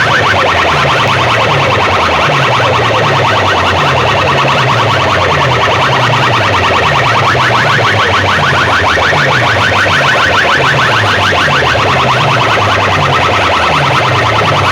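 Loud electronic DJ track played through a competition sound system: a fast, repeating siren-like synth chirp over a looping bass figure.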